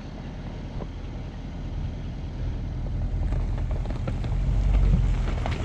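Range Rover Sport's engine running low and steady as the SUV creeps forward onto a rocky gravel climb, getting louder from about two seconds in. A few faint crackles of stones under the tyres.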